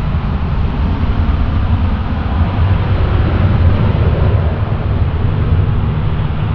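Steady engine noise of an airliner: a low rumble with a hiss above it that holds level throughout, with no clear whine.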